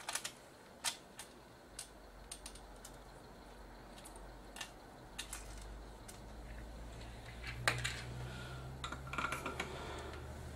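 Scattered light clicks and taps of small hand tools being handled against a circuit board on a workbench, with a short cluster of clicks in the second half. A low hum comes up partway through.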